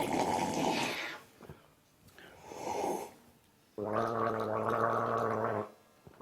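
A person making low, throaty gargling sounds in short bouts, the last one held on a steady low pitch for about two seconds.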